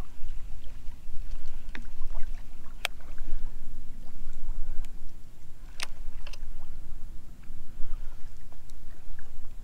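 Kayak moving on the water: a steady low rumble of water and hull noise. Two sharp knocks come about three and six seconds in.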